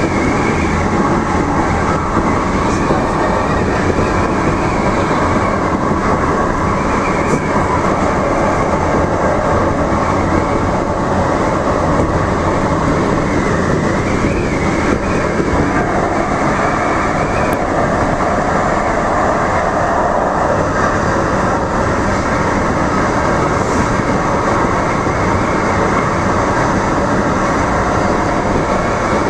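A DART electric light rail train running steadily along the track, heard from the front car: a continuous rumble of wheels on rail with faint steady high tones over it.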